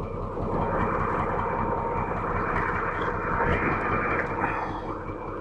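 The diesel engine of an old Kato 25-ton truck crane running steadily after being revived, without smoke. A louder rushing sound with a steady whine rises about half a second in and eases near the end.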